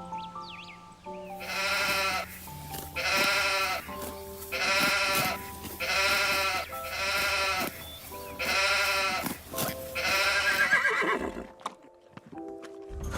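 A goat-like animal bleating about seven times, each call under a second and wavering in pitch, over background music.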